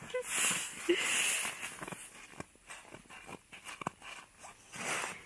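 Close rustling and crunching of snow and a toddler's puffy snowsuit as she mouths a snowball. It is loudest in the first second and a half, then quieter with faint scattered clicks.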